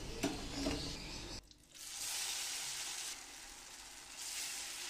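Hot oil sizzling in a wok as a batter-dipped dough piece deep-fries. A few clicks come first, then the hiss sets in about two seconds in, eases a little and swells again near the end as a piece goes into the oil.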